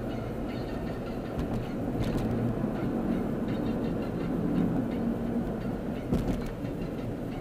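Car driving at speed, heard from inside the cabin: a steady low rumble of engine and road noise, a little louder through the middle, with a brief knock about six seconds in.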